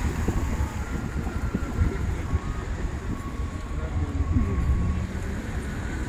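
Car driving slowly on a rough mountain road: a steady low rumble of tyres and engine, with uneven wind buffeting on the microphone.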